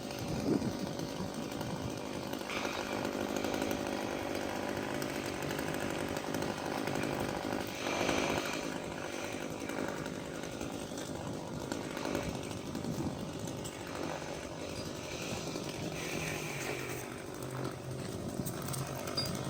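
Chainsaw running steadily at moderate level, cutting at the top of a tree, its engine note shifting slightly up and down as it cuts.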